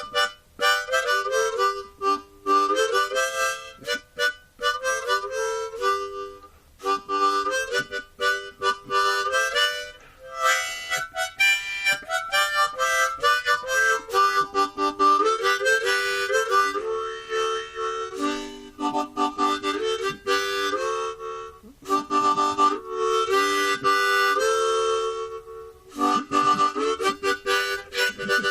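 Background music: a harmonica playing a melody in short stepping notes, with brief pauses between phrases.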